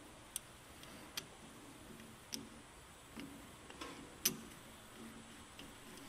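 A handful of light, irregular clicks as a bolt-type battery terminal clamp on the end of a cable is handled and fitted, the loudest about four seconds in.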